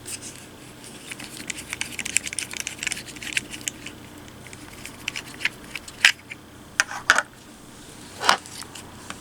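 Light clicks and rattles of a GoPro and its plastic mount being handled and unfastened: a quick flurry of small clicks in the first few seconds, then a few sharper single clicks later on.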